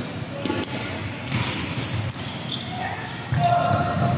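Indoor volleyball court sounds: players' shoes shuffling and squeaking on the court floor and the ball thudding, echoing in the hall, with a voice calling out briefly near the end.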